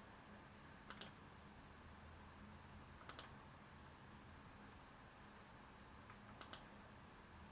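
Three faint double clicks, each pair quick, about two to three seconds apart, over near-silent room tone with a low hum: clicks on a computer's keys or mouse.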